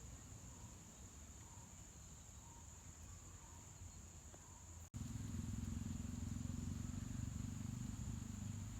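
Insects, likely crickets, trilling in one steady high-pitched tone. About five seconds in the sound cuts out for an instant, and a louder low rumble comes in under the trill.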